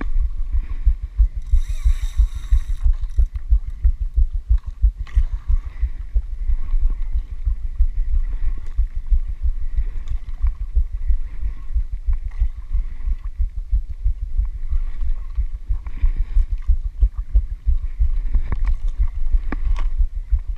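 Low, uneven rumble and buffeting on a body-worn camera's microphone, from wind and motion on a small boat at sea. A few sharp clicks come near the end.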